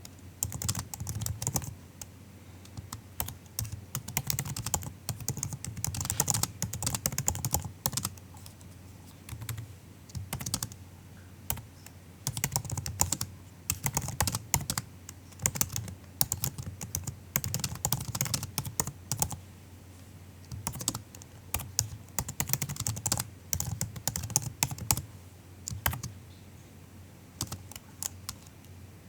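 Typing on a MacBook's laptop keyboard: soft, quick key clicks in bursts, with short pauses between runs.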